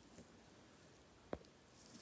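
Near silence, broken by one short, sharp click a little after a second in, from hands handling a plastic action figure.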